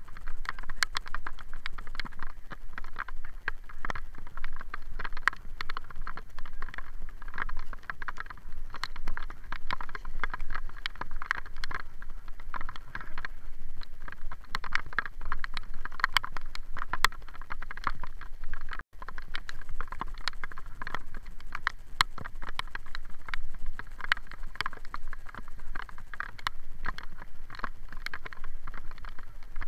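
Dense, irregular clicking and rattling picked up by a bicycle-mounted camera while riding on a wet road in the rain, with a brief dropout about nineteen seconds in.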